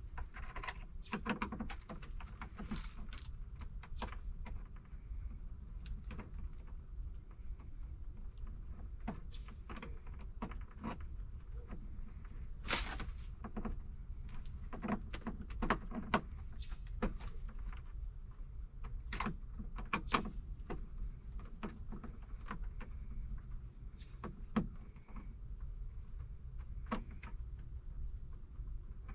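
Irregular clicks, taps and light rattles of hands working with hardware, over a low steady rumble.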